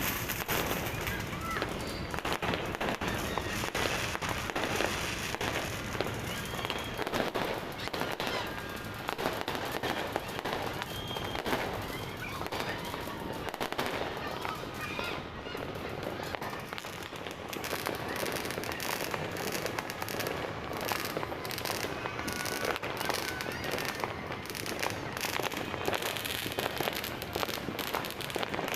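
Fireworks and firecrackers going off all around in a dense, continuous crackle of overlapping bangs and pops, without a break.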